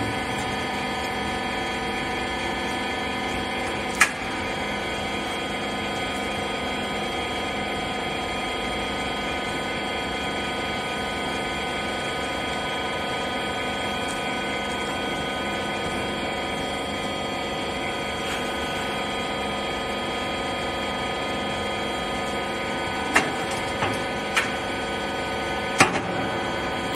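Rag baler machine running with a steady, many-toned hum, with a sharp click about four seconds in and a few more clicks near the end.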